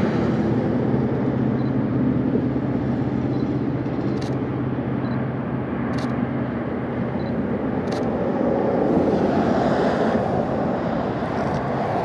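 A steady engine drone with a low hum that fades away after about seven seconds, over a wash of outdoor noise. Three sharp clicks sound about two seconds apart.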